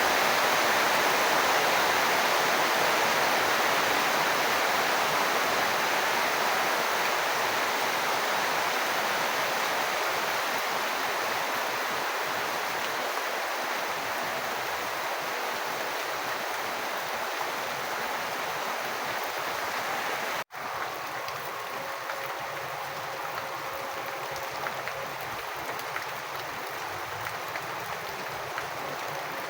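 Steady rush of rain and running water, a dense even hiss that eases slowly. About two-thirds of the way through it cuts out for an instant, then returns thinner and quieter, with scattered drips audible.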